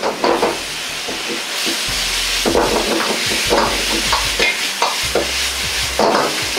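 Taro pieces sizzling in a wok while a metal ladle scrapes and knocks against the wok again and again as they are stirred and tossed.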